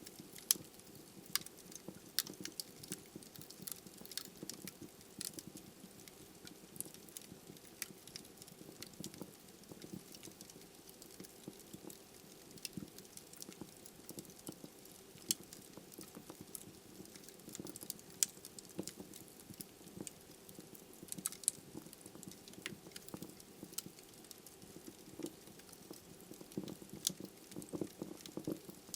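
Wood logs burning in a fireplace: irregular sharp crackles and pops, several a second, over a soft steady hiss of the flames.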